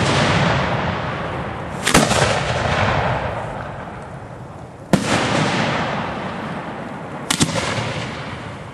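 Display firework shells going off in a slow series: a sharp bang about two seconds in, another near five seconds and a quick double bang past seven seconds. Each bang trails off over two to three seconds.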